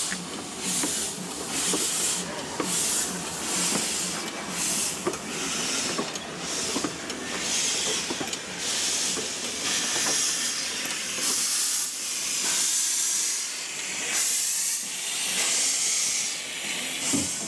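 Small narrow-gauge steam locomotive moving off slowly, steam hissing from its open cylinder drain cocks in rhythmic bursts with each piston stroke, about two a second at first.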